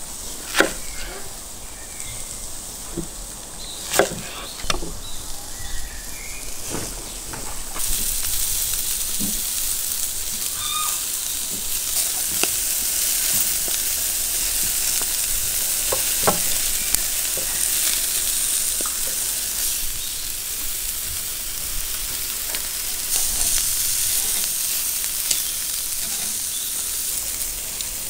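A few sharp knife strokes on a wooden cutting board as an onion is cut, then from about 8 seconds in a steady sizzling of rabbit pieces searing over the fire.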